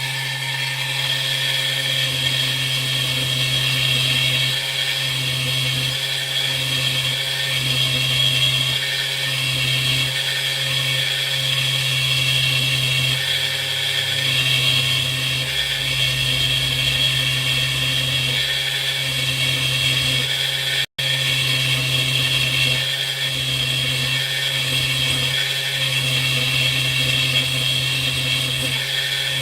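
Small high-speed rotary power tool running steadily while working a 3 mm brass rod, with a constant hum and a high whine. It stops for a split second about two-thirds of the way through.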